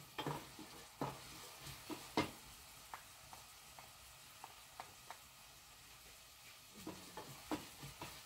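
A wooden spoon stirring food frying in a stainless steel pot, with a faint sizzle under sharp knocks and light taps of the spoon against the pot.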